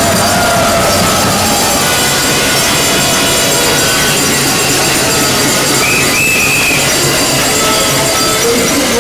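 A large crowd of protesters making a steady, loud din in a big terminal hall, with short high tones standing out now and then, one clearly about two-thirds of the way through.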